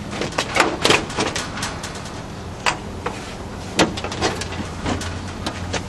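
Irregular metallic clicks and knocks from a steel computer tower case and its drive bays being handled, as a drive is worked loose from its bay.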